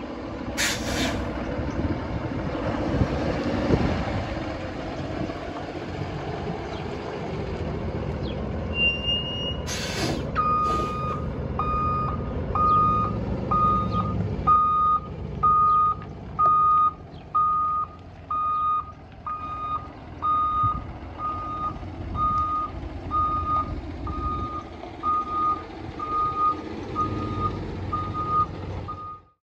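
Freightliner M2 sweeper truck's diesel engine running, with short sharp bursts of air hiss about a second in and again near ten seconds. From about ten seconds on, the truck's backup alarm beeps steadily about once a second, the sign that the truck is in reverse.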